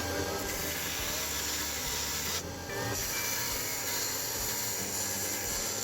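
Unbleached bone nut blank being ground down on a sanding machine: a steady grinding hiss that briefly eases off about two and a half seconds in.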